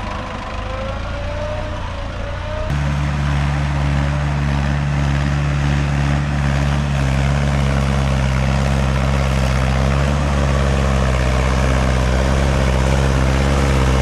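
Mahindra 585 DI XP Plus tractor's four-cylinder diesel engine running hard at steady revs under load as it claws up a loose sand slope, rear wheels spinning in the sand. About three seconds in the engine sound abruptly becomes louder and then holds steady.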